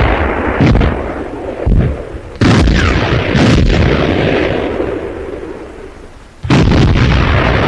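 Heavy guns firing in a series of shots, each a sharp report followed by a long rumbling decay. The loudest come about two and a half seconds in and again about six and a half seconds in, with smaller shots between them.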